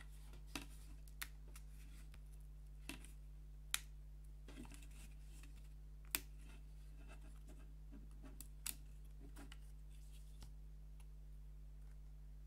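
Small wooden puzzle pieces being handled and fitted together: scattered light clicks and taps with soft scraping between, two sharper clicks about four and six seconds in.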